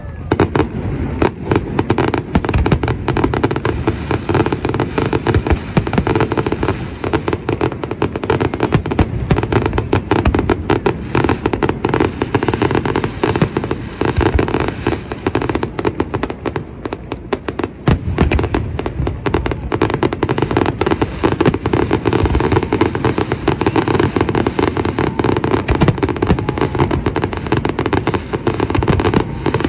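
A fireworks display firing continuously, aerial shells bursting in rapid succession, many bangs overlapping with barely a gap, in the manner of a finale barrage.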